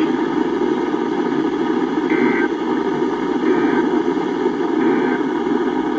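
Three short warbling data bursts from a weather radio broadcast, the Emergency Alert System end-of-message code sent three times about a second and a half apart, marking the close of the required weekly test. They sit over a steady, loud static noise from the radio reception.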